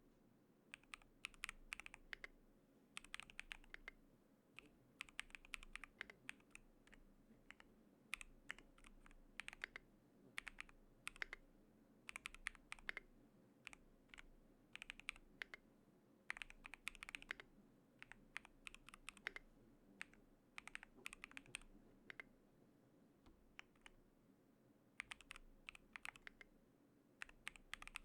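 Typing on an Akko YU01 resin-cased mechanical keyboard with Akko V3 Piano Pro switches: soft, muted keystrokes in short bursts with brief pauses between them. The keyboard is built quiet, with dampening foam and thick plastic keycaps.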